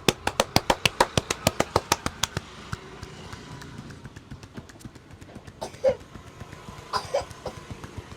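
Rapid percussive hand strikes on the head and shoulders of a barber's head massage, about six a second, fading out after about two and a half seconds. Two short cough-like sounds follow later.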